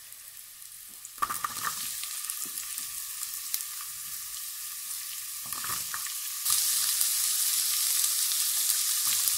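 Sliced onions frying in oil, sizzling. About a second in, chopped celery is tipped into the pan and the sizzle gets louder; about six and a half seconds in, sliced green peppers go in and it gets louder again.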